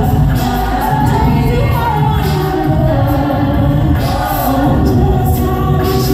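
A group of voices singing together in harmony over a steady low bass.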